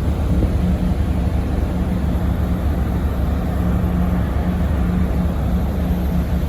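Car ferry's engine running steadily under way: a constant low drone with a steady hum.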